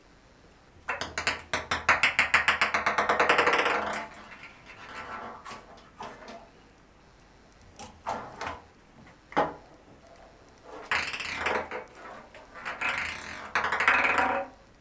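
Ping pong ball batted by a cat, bouncing and rolling on the bathtub's hard surface. A run of bounces starts about a second in, comes faster and faster until it runs together into a rattle, and breaks off near the four-second mark. Scattered single clicks follow, then another stretch of hits and rolling near the end.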